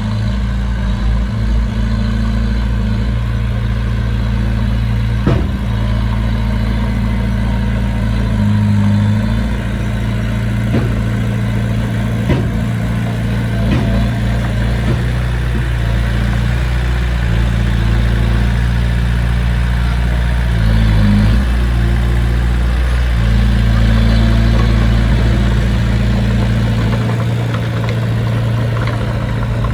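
Heavy diesel engine of earthmoving machinery running steadily, its pitch shifting now and then under changing load, with a couple of short knocks.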